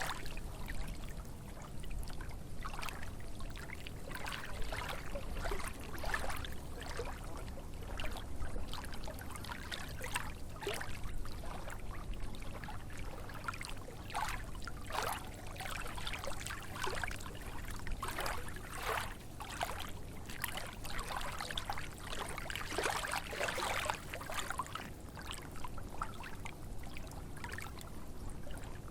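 Small lake waves lapping in irregular little splashes, one every second or so, over a steady low rumble.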